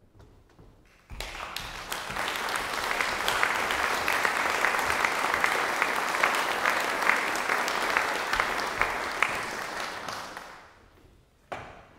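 Audience applauding: the clapping starts about a second in, holds steady, then dies away near the end.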